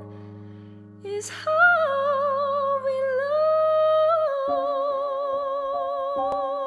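A woman singing solo, holding long notes with vibrato over a sustained chordal accompaniment. She takes a breath about a second in, and about four seconds in the accompaniment changes to shorter, repeated notes.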